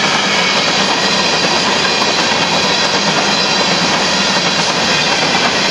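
Empty covered hopper cars of a Union Pacific sand train rolling past, a steady, loud noise of steel wheels running on the rails.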